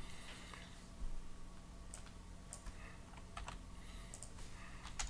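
Computer keyboard typing: irregular keystrokes with short pauses between them.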